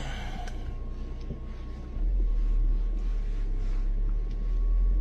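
Low rumble heard from inside a car's cabin, becoming much louder about two seconds in, with a faint steady high tone over it.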